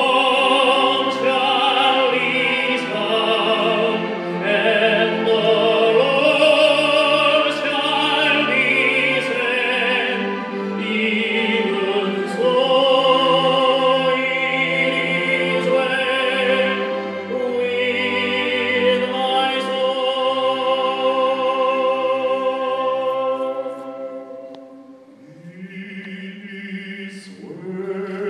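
Three male singers performing in a classical, operatic style with wide vibrato over a string orchestra. Near the end the music drops away briefly, then the voices and strings come back in.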